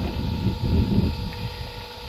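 Wind buffeting the microphone: an uneven low rumble that swells and fades, over a faint steady hum.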